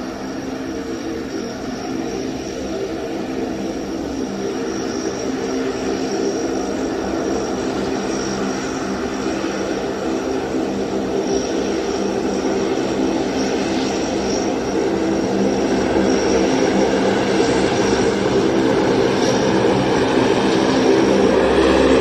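C-130E Hercules's four Allison T56 turboprop engines running, a steady hum of several tones with a thin high whine above it, growing gradually louder.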